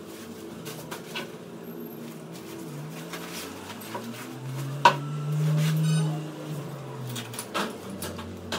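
A nylon umbrella softbox and its carry bag being handled: fabric rustling with light clicks and knocks from the folded metal ribs, and one sharp click about five seconds in. A low hum swells and fades for a couple of seconds in the middle.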